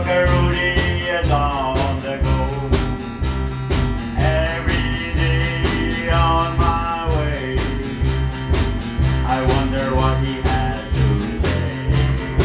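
A small live band playing a country song: a drum kit keeping a steady beat under electric bass notes and guitars, with a wavering melody line over the top.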